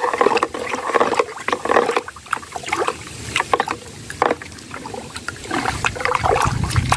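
A metal spoon stirring soapy liquid in a plastic bucket: swishing, splashing water with irregular light clicks.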